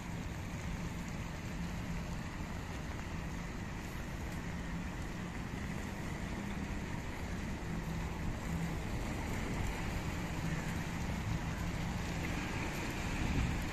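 Steady hiss of splashing water from a round fountain spilling over its rim, with rain. It grows a little louder near the end.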